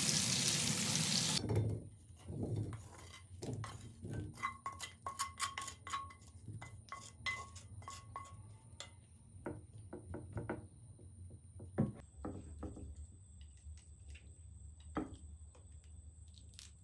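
Potatoes and carrots sizzle in a cast-iron skillet, and the sizzle cuts off about a second in. Then a wooden spatula scrapes and taps the chunks out of the skillet into a glass baking dish, with many small clinks and knocks as pieces land on the glass, and one sharper knock about twelve seconds in.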